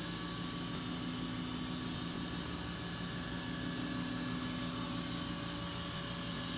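Steady hum and hiss of a reef aquarium's pumps and circulating water, with a constant high whine over a low drone.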